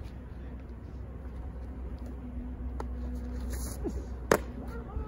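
A pitched hardball baseball smacking into a catcher's leather mitt: one sharp, loud pop about four seconds in, over a low steady rumble.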